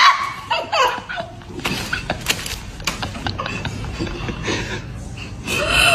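A group of young women laughing and giggling in short bursts, mixed with a little chatter, getting louder near the end.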